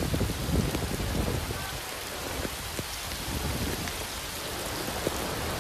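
Torrential rain pouring onto a flooded street: a steady, even hiss.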